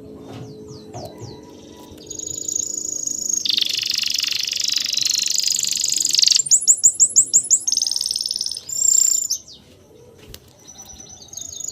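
Songbirds singing: high, rapid trills, then a run of about six loud falling notes, a short high whistle, and a lull before the trilling starts again.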